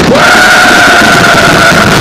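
A horn blows one long steady blast that slides up in pitch as it starts, over a steady loud rush of background noise.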